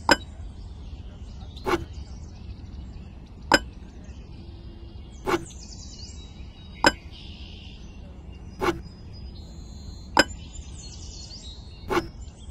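Sharp knocks repeating steadily about every second and a half to two seconds, eight in all, like repeated strikes of a tool, over a low steady background hum. Faint bird chirps come and go.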